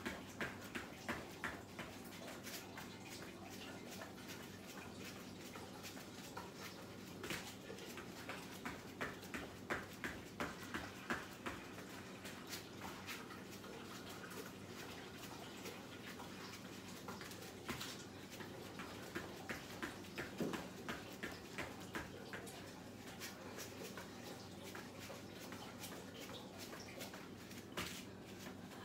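Bare feet landing on an exercise mat over a hard floor during high knees and mountain climbers: runs of faint, quick thumps and taps at about two a second, with short pauses between sets.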